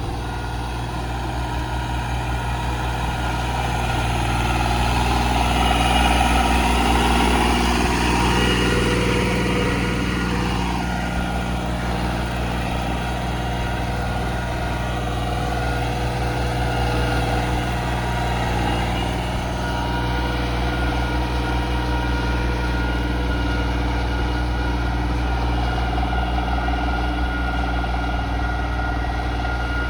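Turbocharged diesel engine of a modified Swaraj 855 tractor running steadily. It swells a little louder around six seconds in, then settles back.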